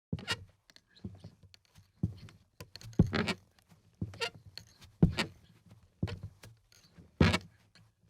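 Footsteps in flip-flops on creaky wooden boards, slow and even at about one step a second. Each step is a slap of the sandal followed by a short creak of the wood.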